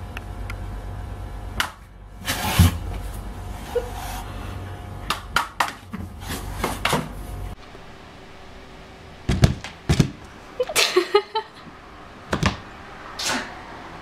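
Sharp knocks and thuds of a plastic vacuum cleaner nozzle and hose, some in quick clusters, over a steady low hum that stops suddenly about halfway through.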